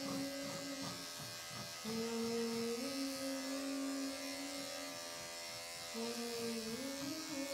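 Andis five-speed corded dog clipper running as it trims the fur on a dog's head: a steady electric hum that briefly fades, returns lower, then steps back up in pitch twice.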